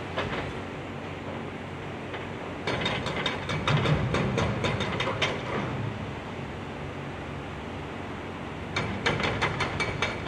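Excavators demolishing a concrete highway bridge: two spells of rapid clattering knocks, about three seconds long and then about a second, over a steady background rumble.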